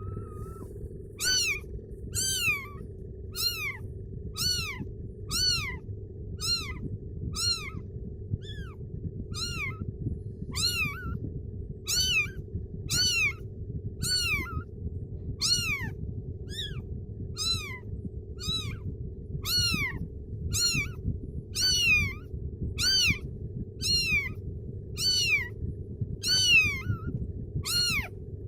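Kitten meowing over and over, high-pitched calls about one every second, each rising and then falling in pitch, over a steady low hum.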